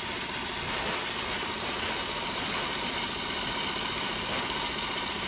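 Miele CM5310 Silence automatic coffee machine running steadily as it froths milk and dispenses it into two cups for a double cappuccino: an even, low mechanical hum and hiss with a fine rapid pulsing.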